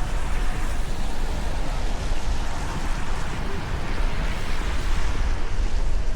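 Steady rushing city street noise with a constant low rumble, without distinct events.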